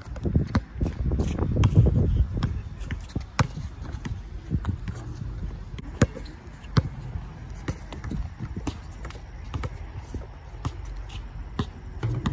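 A basketball bouncing on a hard outdoor court as a player dribbles, the bounces coming at an uneven pace.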